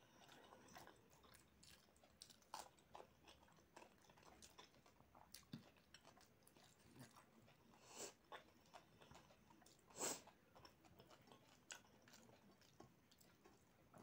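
Faint close-up chewing of rice and chicken curry eaten by hand, with soft sounds of fingers mixing rice on a plate. Scattered short clicks, the loudest about ten seconds in.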